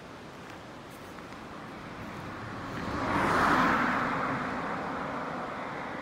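A car passing close by on an asphalt road. Its tyre and engine noise swells to a peak about three and a half seconds in, then fades as it drives away.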